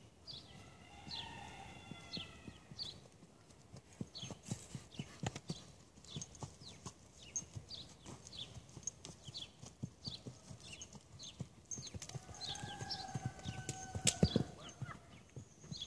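Horse's hooves striking the ground in an irregular run of thuds as it is ridden across the field, loudest about fourteen seconds in as it comes close.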